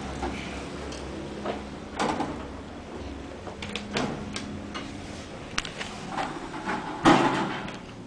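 Elevator doors sliding and knocking, with scattered sharp clicks; the loudest thump comes about seven seconds in, over a low hum.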